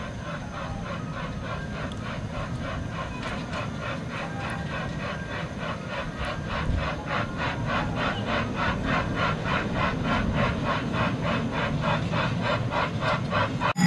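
Small amusement-park ride train styled as a steam locomotive approaching along its track, with a steady, even rhythmic beat that grows louder as it comes closer.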